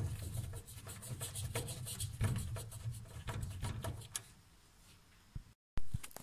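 Hand screwdriver turning the adjustment screw on a sliding wardrobe door's top roller wheel, a run of small clicks and rubbing that fades after about four and a half seconds. The screw had worked fully loose, letting the door slide on its own, and is being tightened to hold it in place.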